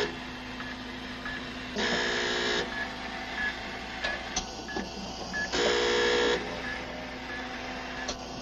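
Hospital life-support equipment: a ventilator cycles with a hiss and a hum about every four seconds, three times, while a monitor gives short faint beeps in between.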